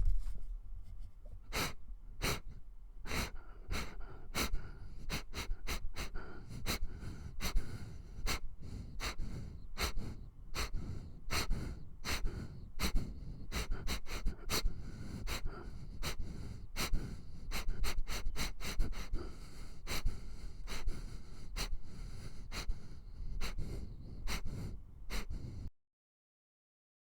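Dog sniffing close to the microphone: quick, irregular runs of short sharp sniffs, several a second, over a low rumble. The sound cuts off abruptly near the end.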